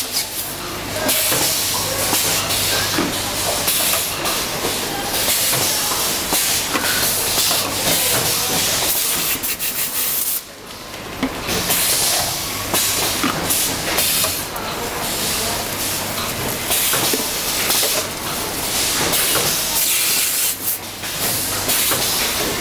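Cylinder heat-transfer printing machine running, with a loud steady hiss over a low hum and scattered clicks and knocks from its mechanism. The hiss drops away briefly about ten seconds in, then returns.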